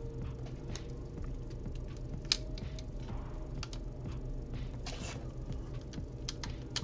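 Plastic LEGO bricks clicking as they are handled and pressed together: a handful of scattered sharp clicks, the loudest about two seconds in.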